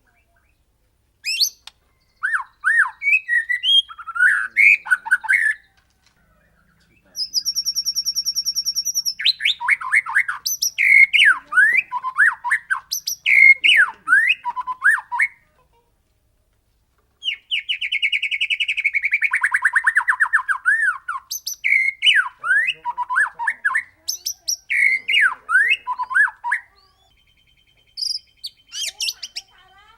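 White-rumped shama singing in loud bursts of varied whistled phrases, with short pauses between them. About seven seconds in comes a rapid, high pulsed trill, and around the middle a long rolling trill that slides steadily downward.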